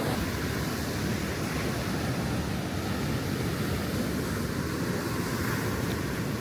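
Sea surf washing onto the beach, with wind blowing across the microphone in a steady deep rush.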